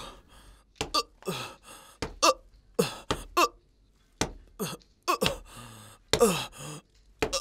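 Blows landing on a man one after another, sharp smacks each followed by his short pained grunt or groan falling in pitch.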